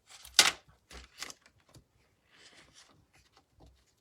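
Handling of a rub-on furniture transfer sheet: a sharp rustle of the sheet about half a second in, a few light taps and clicks, then a soft brushing sound in the middle as it is folded over and pressed down.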